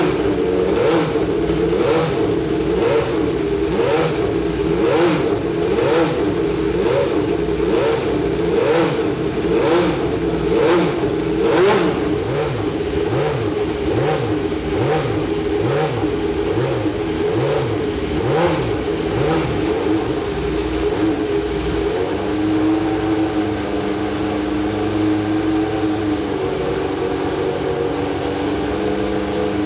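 A Ford Cosworth V8 in a 1991 Osella Fondmetal Formula 1 car is blipped sharply about once a second, each rev rising and falling quickly. About twenty seconds in it settles to a steady, uneven idle.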